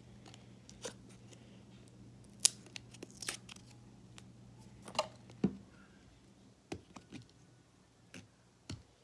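Fingers picking and scratching at the plastic lid and seal of a slime container that won't peel off cleanly, giving scattered sharp clicks and short tearing and scraping sounds.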